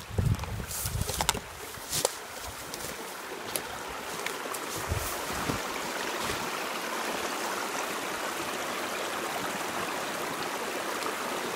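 Small creek flowing over branches and ice: a steady rush of running water. A few knocks and thumps come in the first two seconds.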